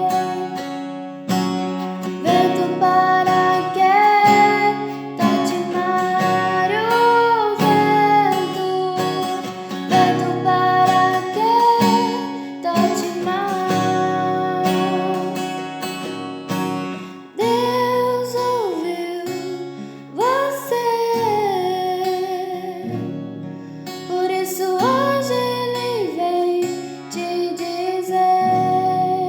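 Music: an instrumental passage of a hymn with strummed acoustic guitar under a gliding melody line.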